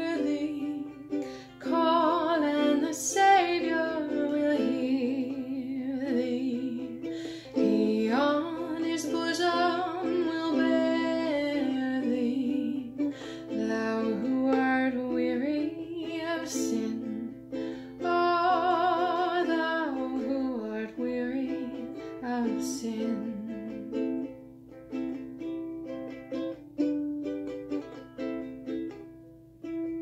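A woman singing a slow hymn melody over ukulele chords. The voice drops out about two-thirds of the way through, leaving the ukulele playing alone.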